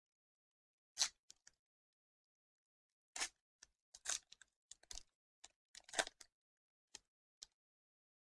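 Foil wrapper of a Pokémon trading-card booster pack crinkling and tearing as it is opened by hand, in a string of short, sharp crackles, loudest about a second in and again about six seconds in.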